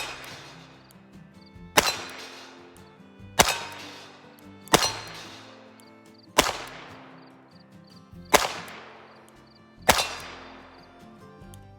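Six shots from a Smith & Wesson 317-3 AirLite .22 LR revolver, fired one at a time about one and a half to two seconds apart. Each shot is a sharp crack trailing off quickly.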